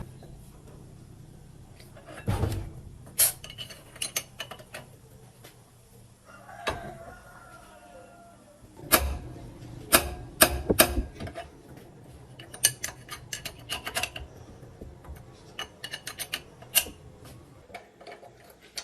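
Metal tools and engine parts clinking and clanking as they are handled and set down, in irregular knocks with a cluster of louder clanks about nine to eleven seconds in. There is a brief scraping squeal around six to eight seconds in.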